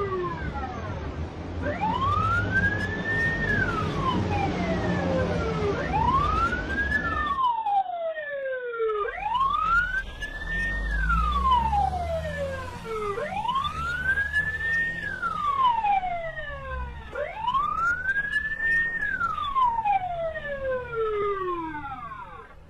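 Police siren wailing: a pitch that rises, briefly holds, then falls, repeating about once every four seconds, with fainter overlapping sweeps and a low rumble underneath.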